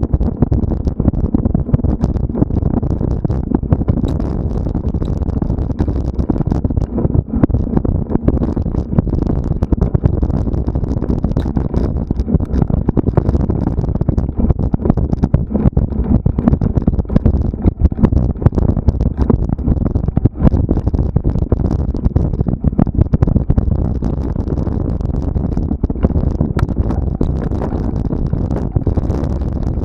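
Mountain bike ridden over a rough cross-country trail, heard through a mounted camera: a constant low rumble of tyres and wind on the microphone, with many irregular rattles and knocks from the terrain.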